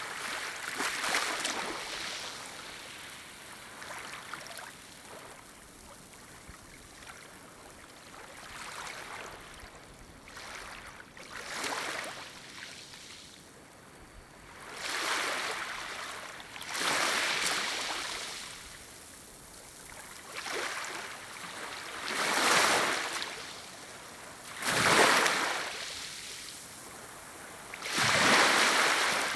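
Gentle waves lapping on a shore, each a short rush of water that swells and fades every few seconds over a steady wash, the later ones louder.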